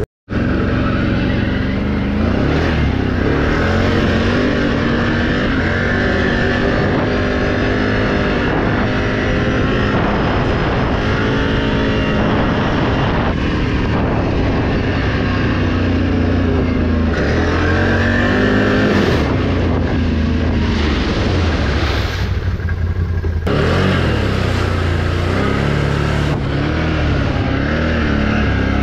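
Can-Am Renegade XMR 1000's V-twin engine running on the move, its pitch rising and falling as the throttle is opened and eased. The sound drops out for an instant right at the start.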